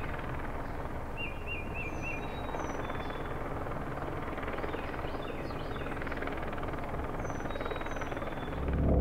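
Steady outdoor city ambience: a low traffic rumble with small birds chirping now and then. A deep swell begins to build near the end.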